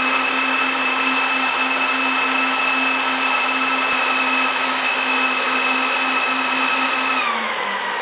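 The cooling fans of a Tyan Transport GT24 1U rack server running flat out at power-on: a loud rush of air with a steady high whine. About seven seconds in they slow to a lower speed and the whine drops in pitch, the usual step when the board takes over fan control after start-up.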